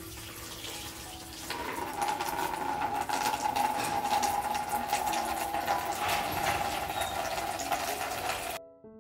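Tap water pouring from a hose into a plastic basin of water, splashing as spring onions are rinsed in the stream. It grows louder about a second and a half in and cuts off abruptly near the end.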